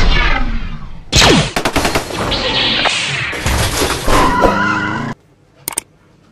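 Robot-transformation sound effect as a robot folds into a car: dense mechanical clatter and crashes with a falling whoosh, stopping abruptly about five seconds in. After that come a couple of faint clicks.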